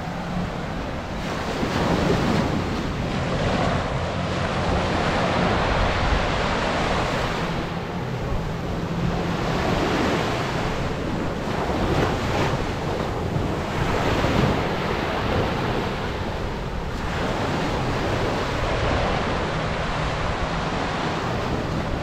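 Small surf washing onto the shore in repeated swells, mixed with wind buffeting the microphone.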